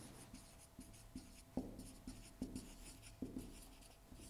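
Marker writing on a whiteboard: a series of faint, short squeaky strokes with a few light taps of the tip as a word is written.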